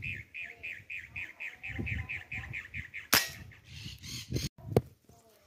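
A bird calls in a rapid, even series of high notes, cut off about three seconds in by one sharp shot from a PR900S PCP air rifle. A second sharp crack follows under two seconds later.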